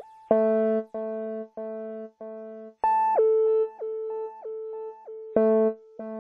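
Background music: a steady pattern of repeated electronic keyboard notes, with a stronger accent about every two and a half seconds.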